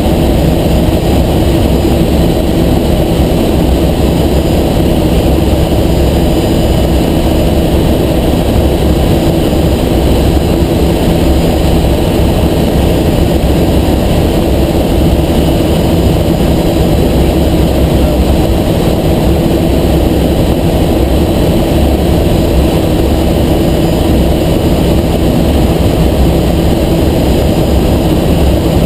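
Helicopter in level flight: a loud, steady drone of rotor and engine with constant low tones that do not change.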